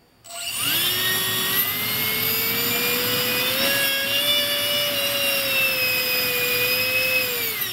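Electric ducted fan spinning up under throttle into a steady, high whine. Its pitch rises over the first second, edges higher around the middle, holds, then drops as it spools down near the end. This is a dynamic-balancing test run, checking the fan for vibration.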